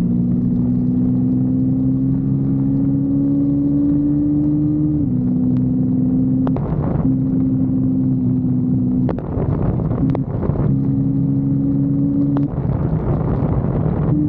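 Kawasaki Versys-X 250's parallel-twin engine running under load on a ride, its note climbing slowly for about five seconds, then dropping and breaking off several times in the second half, with a rushing noise and a few sharp clicks in the gaps.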